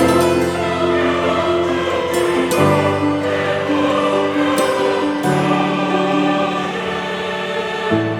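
Background music: a choir singing held, slow-moving chords.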